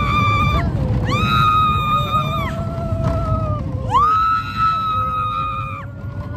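Riders screaming on the Big Thunder Mountain mine-train roller coaster: two long, high, held screams, one starting about a second in and the other about four seconds in, over the low rumble of the moving train.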